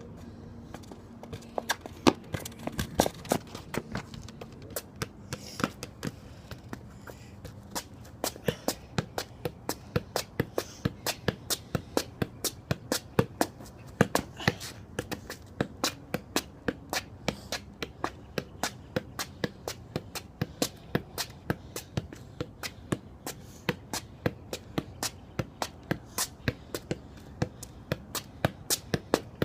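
Futsal ball being tapped again and again with a shoe, about three sharp touches a second, some harder than others.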